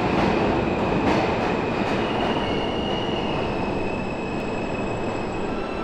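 New York City subway train pulling into the station along the platform: a loud, steady rumble with a thin high-pitched tone ringing over it.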